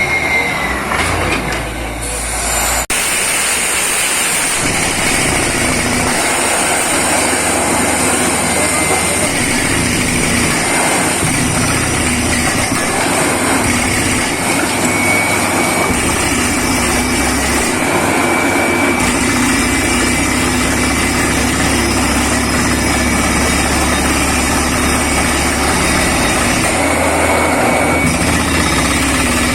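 Borewell drilling rig running: a loud, steady machine noise with a thin high whine held throughout.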